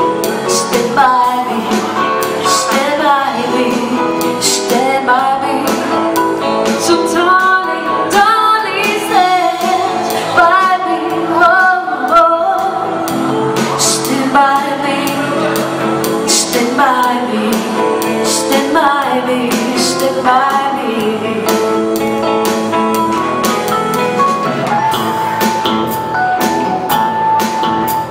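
A live band playing: a woman sings a melody with vibrato into a microphone over electric guitar, keyboard and percussion with regular cymbal strokes. A long note is held near the end.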